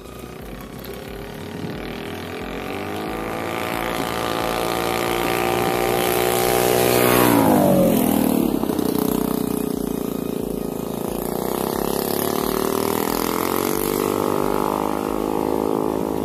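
A motorboat engine passing by. Its drone rises in pitch and grows louder, drops sharply in pitch as the boat goes past about halfway through, then carries on at the lower pitch as it moves away.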